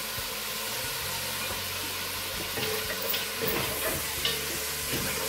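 Small pieces of lamb sizzling as they brown in butter in a pot, a steady frying hiss, with the knocks and scrapes of a spoon stirring them from about halfway through.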